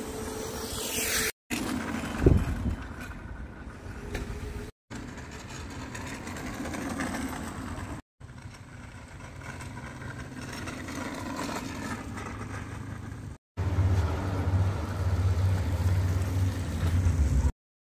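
Children's electric go-karts and a mini bike driving on asphalt: a steady whir and tyre noise that breaks off sharply five times. There is a loud thump about two seconds in, and a heavier low rumble near the end.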